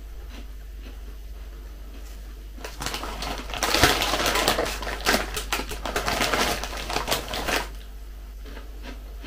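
Plastic packaging crinkling and rustling for about five seconds, starting around three seconds in, as a snack packet is handled.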